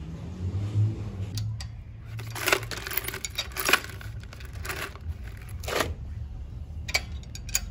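Steel combination wrench clinking and scraping against a bolt and brackets on a bare motorcycle frame, in a string of short metallic clicks with a busier run of scraping a few seconds in.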